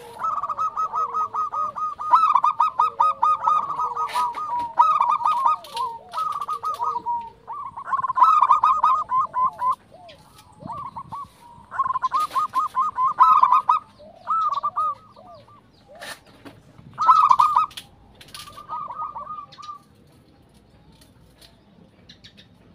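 Zebra dove (perkutut) singing its rapid cooing song: phrases of quick, clipped notes, repeated one after another and stopping shortly before the end.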